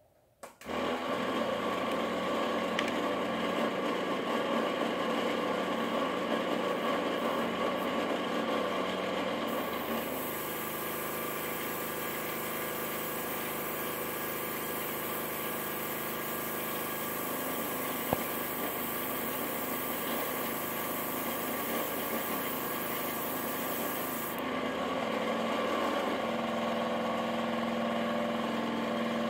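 Small airbrush compressor switches on about half a second in and runs steadily with a hum. From about ten seconds in to about twenty-four seconds, the airbrush adds a hiss of air as it sprays thinned acrylic paint.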